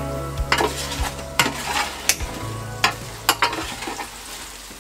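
A metal utensil scraping and clinking against a roasting tray as roast potatoes are turned, several sharp clinks over a steady sizzle of hot fat.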